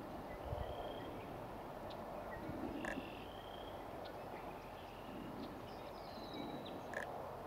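Marsh ambience: a steady background hiss with faint, short calls of distant small birds and a few sharp clicks, plus a brief low rumble about half a second in.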